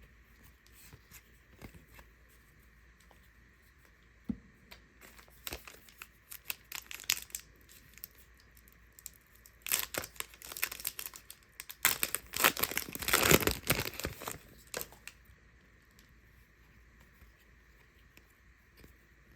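Trading card pack packaging being torn open and crinkled by hand: scattered crackles about five seconds in, then a longer, louder stretch of tearing and crinkling that stops a few seconds before the end.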